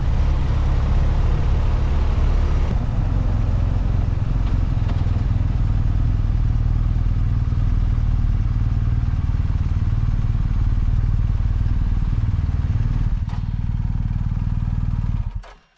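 BMW R 1250 GS boxer-twin engine running while riding along, heard from the bike itself together with a steady rush of wind and road noise. The sound cuts off abruptly near the end.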